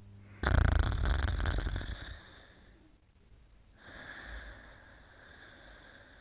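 Snoring of a sleeper. A loud rattling snore starts suddenly about half a second in and fades over about two seconds. After a short pause comes a softer breath with a faint whistle.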